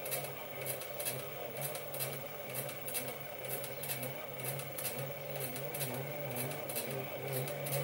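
Sieg SC3 mini lathe turning slowly at about 160 RPM while a clamp-type knurling tool presses its knurl wheels into the spinning bar: a steady motor hum with a regular ticking about twice a second.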